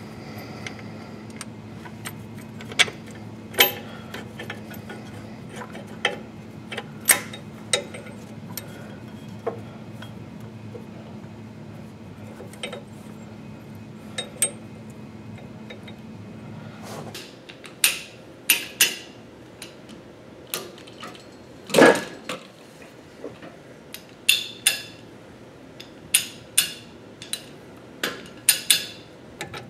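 Hand tools clinking and tapping on metal as a wrench works the engine-mount bolt of an old Clark forklift, over a steady low hum that stops a little past halfway. After that come sharper, more frequent metallic clanks, the loudest about three-quarters of the way through.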